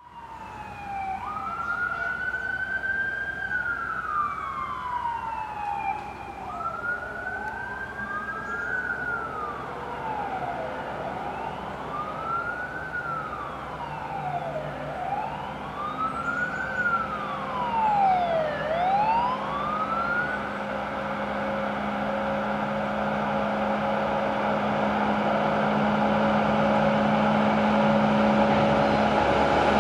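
Fire engines' sirens wailing as the convoy approaches, each slow rise and fall taking about four seconds, with a second siren overlapping at times. About two-thirds of the way in the sirens stop, leaving the diesel engines and tyres of the approaching trucks, growing louder towards the end.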